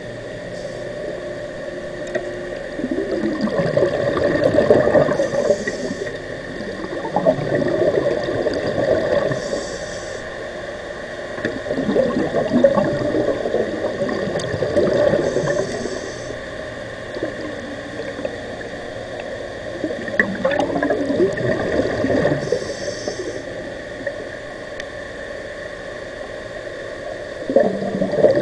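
Underwater breathing of a diver on a regulator: exhaled bubbles gurgle in bursts about five times, each followed by a short hiss of inhalation.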